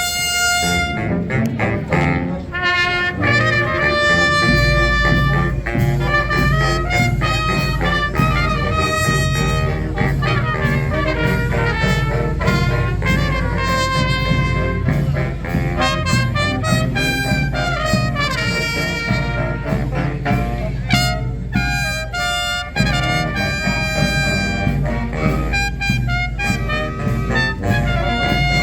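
A brass band playing a lively tune live, trumpets leading over trombones, with a deep low rumble joining about four seconds in.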